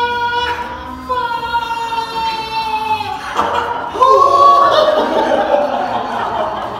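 A single high-pitched voice holding a long, drawn-out sung note, stepping down slightly about a second in. About three seconds in it gives way to a jumble of voices and laughter that grows loudest about four seconds in.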